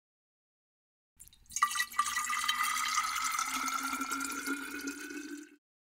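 Sound effect of water: a couple of splashy drips about a second and a half in, then water pouring with a pitch that slowly rises, as if a vessel were filling. It cuts off suddenly near the end.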